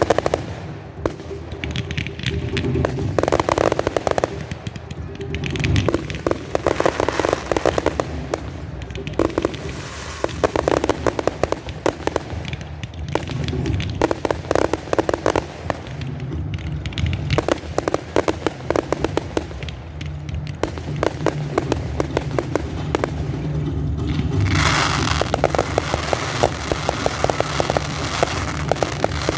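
Fireworks display: repeated clusters of rapid crackling pops from crackling-star shells, each rattle lasting a second or two. About 25 seconds in, the crackle turns denser and louder.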